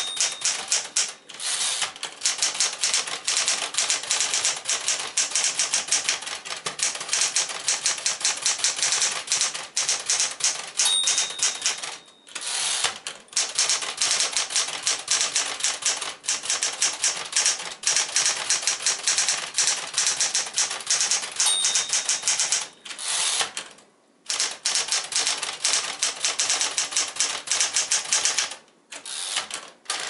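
1974 Smith-Corona Galaxie Twelve manual portable typewriter being typed on quickly, keys and typebars striking the platen several times a second. The margin bell rings three times, at the start, about 11 s in and about 21 s in, near the end of a line, and the typing stops briefly soon after each ring.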